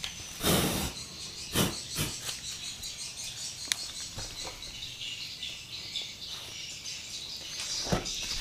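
Birds and insects chirping in the background, with a short loud scraping rustle about half a second in and a few sharp knocks, around two seconds in and again near the end.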